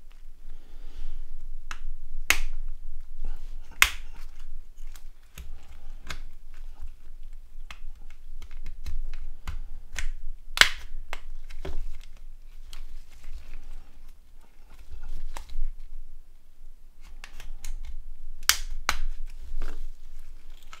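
Irregular sharp plastic clicks and snaps from a Nokia 6290's shell being opened up by hand, a few of them louder, over low handling rumble.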